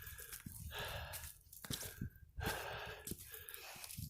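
A hiker breathing hard on a steep uphill climb, with two heavy breaths about a second in and around two and a half seconds in, over a low rumble of wind on the microphone.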